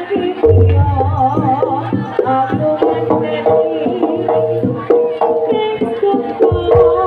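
Jaranan gamelan accompaniment: a quick pattern of drum strokes over a deep sustained low tone, with a melody line that wavers in pitch.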